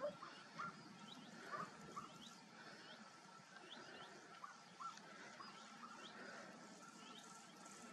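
Faint, distant animal calls: short rising yelps repeating irregularly, about two a second.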